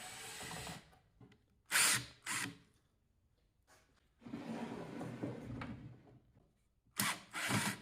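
Power drill-driver backing out the screws that hold down a metal furnace lid, in several short runs and one longer run of about two seconds in the middle.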